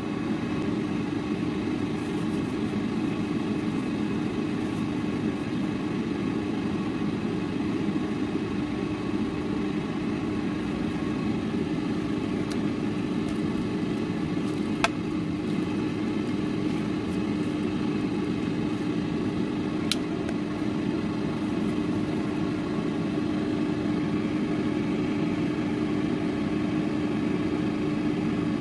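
Ninja air fryer roasting at 400°F, its fan running with a steady hum and whir. A couple of light clicks sound about halfway through.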